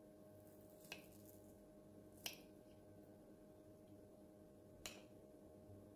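Three faint, sharp clicks of a table knife against a ceramic plate while cutting through a soft cocoa-dusted sponge cake, over a faint steady hum.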